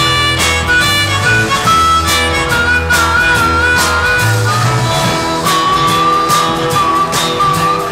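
Live blues-rock band playing: a harmonica holds long notes that waver in pitch, dropping to a lower held note a little past halfway, over a repeating guitar and bass riff and steady drums.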